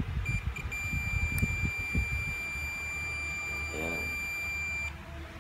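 Digital multimeter's continuity buzzer beeping as the alligator clip meets the long-nose pliers: a couple of short blips, then one steady high beep for about four seconds that cuts off suddenly, the sign of a closed circuit through the clip. Light clicks and rattles of the clip and pliers being handled in the first two seconds.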